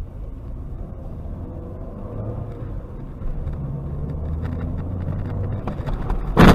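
Steady low rumble of a car's engine and tyres heard from inside the cabin, then near the end a single loud bang as another car collides with it.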